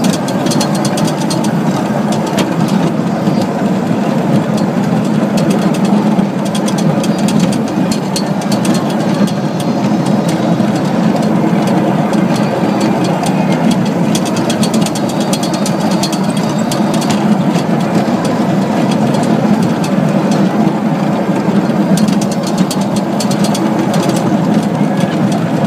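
Small children's electric ride-on train running along its rail track: a steady rumble from the motor and the wheels on the rails, with light clicks and rattles.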